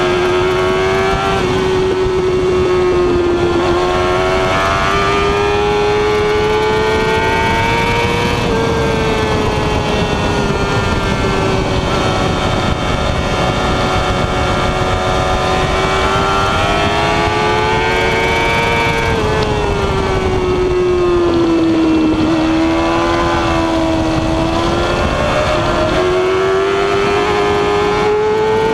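Yamaha YZF-R6 inline-four engine running at high revs, heard from on board at racing speed, its pitch rising and falling with the throttle; it dips about twenty seconds in, then climbs again. Wind rush on the microphone runs underneath.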